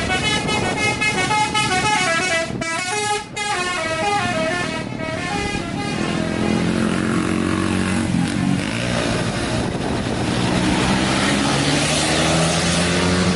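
Intercity bus's 'telolet basuri' musical air horn playing a stepping multi-note tune for about six seconds, then giving way to a lower, steadier tone over traffic noise.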